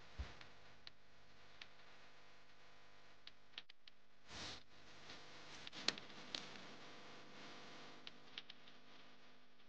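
Knife blade digging and scraping in soil and forest duff: faint scattered ticks and clicks, with a short scrape about halfway through and a sharper click about six seconds in.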